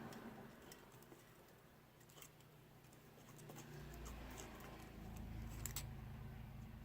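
Faint clicks and light scratching of small drone camera parts being handled and fitted, with a low hum coming in about four seconds in.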